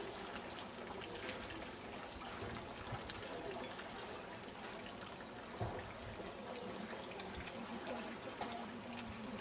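Steady outdoor background noise with faint voices of people talking in the distance.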